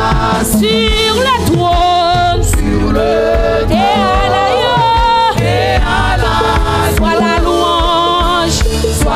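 Gospel worship song sung by a church worship team of women on microphones, with wavering, vibrato-laden voices over steady low instrumental backing.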